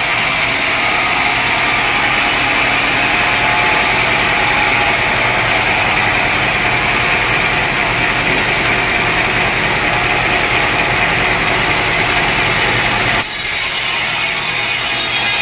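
A sawmill saw cutting through dense teak wood with a steady loud whine. About 13 seconds in, the sound changes abruptly: the lower part drops away and a bright hiss takes over.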